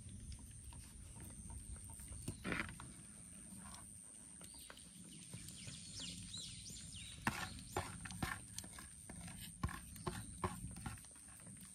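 Cats eating, with irregular crisp crunching clicks from their chewing over a low steady background hiss. A few short high chirps come about halfway through.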